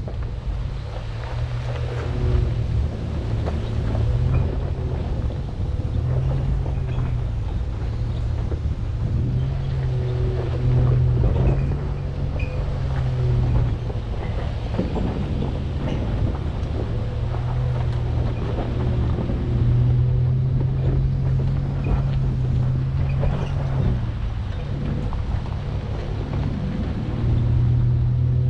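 2019 Chevy Colorado ZR2 pickup crawling up a rocky dirt trail: the engine drones at low speed, its pitch rising and falling with the throttle, while the truck knocks and rattles over rocks. Wind rumbles on the outside-mounted microphone.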